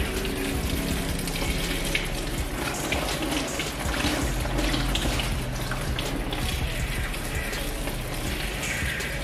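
Handheld shower sprayer running steadily, its water spraying onto hair and splashing into a salon shampoo basin as the hair is rinsed.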